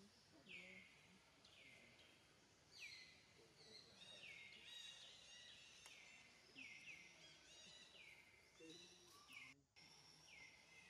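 A bird calling over and over outdoors: faint, high notes that each slide sharply down and then level off, about one or two a second, crowding together in the middle. The sound briefly cuts out near the end.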